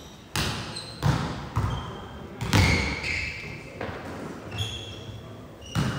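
Volleyballs being hit and bouncing on a sports hall floor: sharp thuds at uneven spacing, about one a second, echoing in the large hall. Short high squeaks of sports shoes on the floor come between them.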